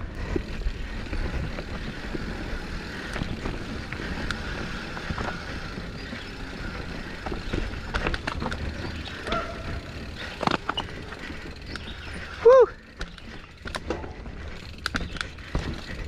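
Mountain bike riding down a rough, rocky trail: a steady rush and rumble of wind and tyres, with many quick clicks and rattles as the bike hits rocks. About twelve seconds in, a short, loud pitched sound rises and falls.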